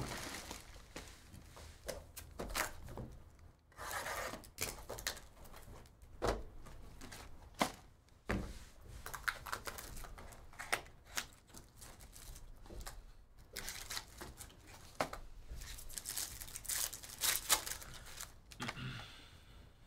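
Trading-card packaging being opened by hand: a cardboard mini box torn open and a foil-wrapped pack crinkling and tearing. Many small clicks and taps of hands on the packaging run throughout, with several short rips.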